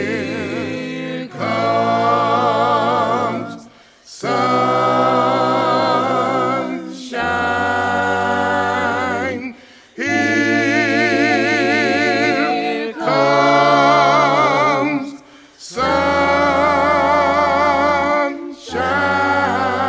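A cappella vocal harmony: several voices singing held chords with vibrato, in phrases of two to three seconds with short breaks between them.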